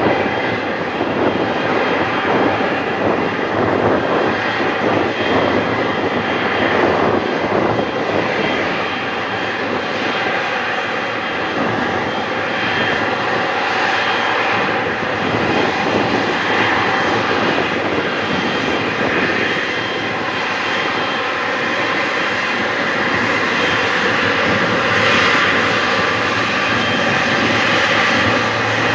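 Air Canada Boeing 777's GE90 turbofan engines running steadily at taxi power as the jet rolls toward the listener, a constant rumble with a whine, growing a little louder near the end.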